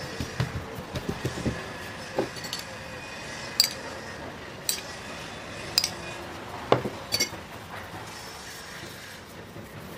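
Soft thumps of hands patting and smoothing a thin sheet of dough on a wooden board, then a few sharp clinks of kitchenware about a second apart as melted butter is poured from a bowl and brushed over the dough.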